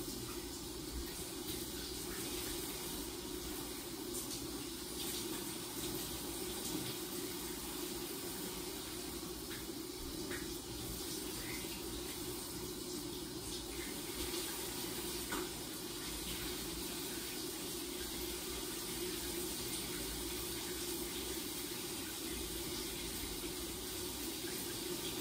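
Shower running: a steady, even spray of water.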